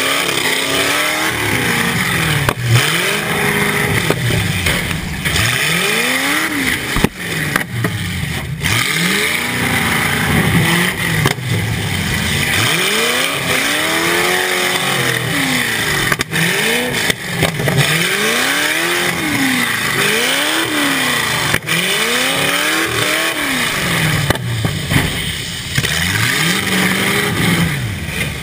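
Demolition derby car's engine revving up and falling back again and again, heard from inside the car, with sharp bangs of impacts now and then.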